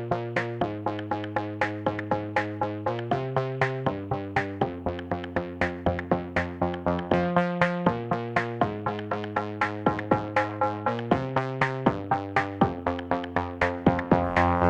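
Background music with a steady beat under held chords that change every second or two.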